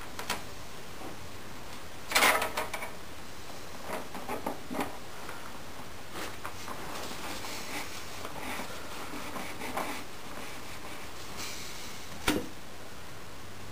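Handling noise from work on an archtop guitar body at a wooden bench: scattered light taps and knocks, a short cluster of clatters about two seconds in, and one sharp knock near the end.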